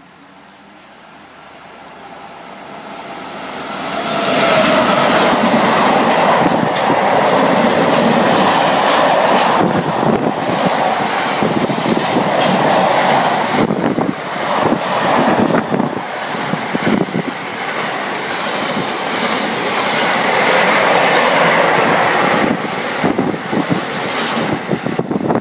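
Freight train of car-carrier wagons loaded with vans approaching and passing at speed. The noise builds over the first four seconds into a loud rush of wheels and wagons, with clatter of wheels on the rails that lasts to the end.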